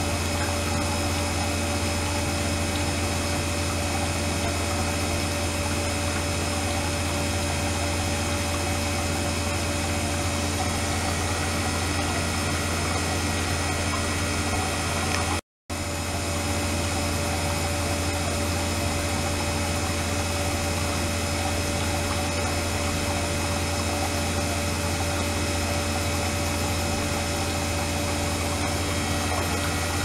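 Flow-through ultrasonic cleaning tank running with its water circulated by a pump: a steady hum and hiss with faint steady tones above it. The sound cuts out briefly about halfway through.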